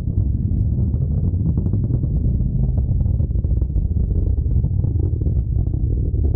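A loud, steady low rumble with faint crackling above it.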